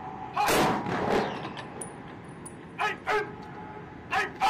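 Rifle volley from a Marine firing detail about half a second in, a sharp crack with a trailing echo. Then the detail commander barks short drill commands: two quick shouts around three seconds in and two more near the end, leading into the next volley.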